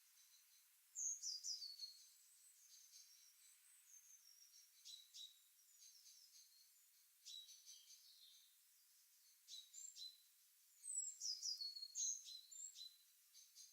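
Birds chirping and singing in short, high-pitched phrases over a faint background hiss, with the loudest flurries about a second in and again near the end.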